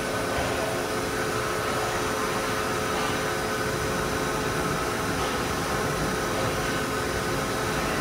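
Daewoo Puma 8 CNC turning center running a program, its tool turret traversing: a steady machine hum with several held whining tones.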